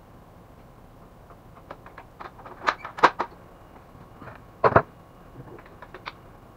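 Clicks and clacks of a screwdriver and plastic and metal printer parts being handled and set down during reassembly of a laser printer, with a few louder knocks around three seconds in and a double knock just before five seconds.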